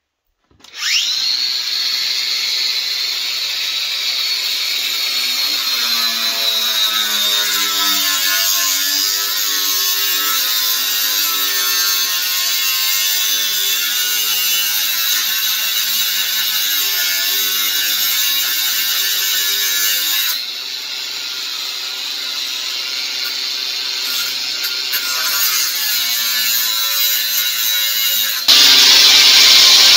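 Cordless angle grinder spinning up about a second in and cutting through the metal tubing of a commode chair frame: a steady high whine whose pitch sags and wavers as the disc bites into the tube. The level dips slightly about two-thirds of the way through and jumps louder near the end.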